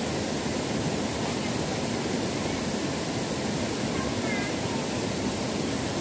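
Curtain waterfall pouring down a cliff face in many streams onto rocks below, a steady, even rush of falling water.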